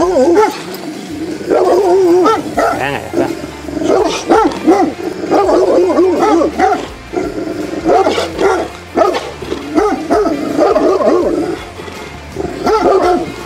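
Presa Canario dog barking repeatedly, in runs of quick barks separated by short pauses.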